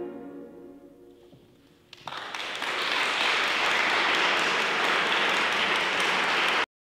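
The final chord of a grand piano dies away into near silence. About two seconds in, steady applause breaks out as the pianist bows, then cuts off abruptly near the end.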